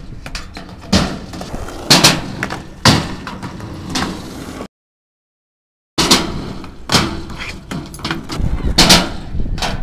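Skateboards on asphalt and a metal ramp: wheels rolling with sharp clacks of boards hitting the ground, roughly one a second. The sound cuts out completely for about a second in the middle.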